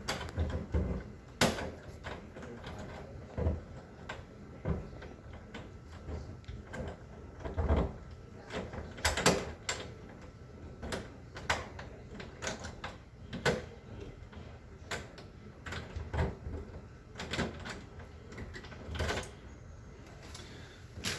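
Lock picks working in a locked door's lock: irregular metallic clicks and taps, with the occasional knock or rattle of the door hardware.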